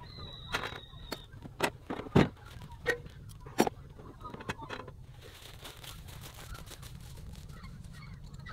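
A metal frying pan clatters and knocks as it is set on a portable gas stove and the stove is handled. About eight sharp knocks and clicks come in the first five seconds, the loudest about two seconds in, followed by a faint steady hiss.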